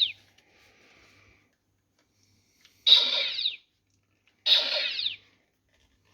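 Electronic blaster-shot sound effect played through a Cylon pistol prop's built-in speaker, fired twice about a second and a half apart. Each shot lasts under a second and ends in a falling sweep.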